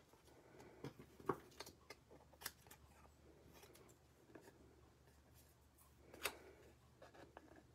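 Small scissors snipping designer-paper strips: a few faint, scattered snips, otherwise near silence.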